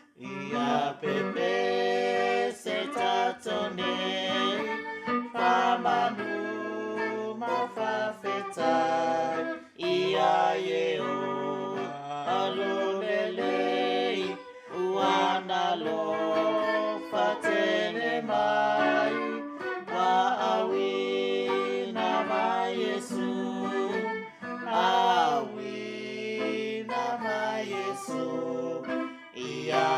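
Singing of a Samoan hymn in Samoan, phrase by phrase with short breaks between lines, accompanied by an electric guitar.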